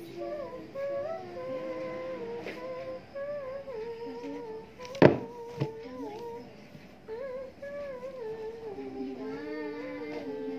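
A girl humming a wandering tune in a small room, holding long notes. About halfway through, a sharp knock, the loudest sound, is followed by a smaller one.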